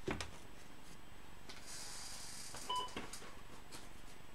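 A soft knock as a large paperback comic album is set into a clear plastic display stand, followed by a light rustle of the book and a small click. A brief faint beep sounds near the middle.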